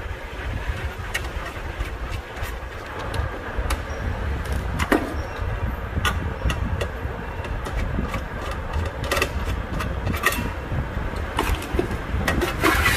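Scattered small metal clicks and taps as the screws of a DVR's sheet-metal case are undone and the case is handled, over a steady low rumble. The clicks come more often near the end.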